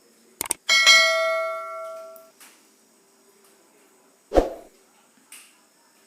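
Metal struck once, ringing with a bell-like tone that fades over about a second and a half. A single dull knock follows near the end.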